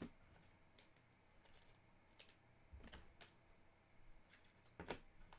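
Faint handling of trading cards: a handful of light clicks and short rustles scattered through a quiet room.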